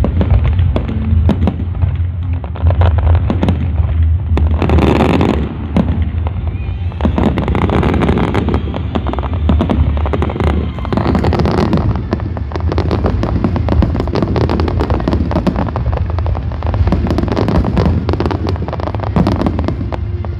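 Fireworks going off: dense crackling and popping throughout, with a louder burst about five seconds in, over a steady low hum.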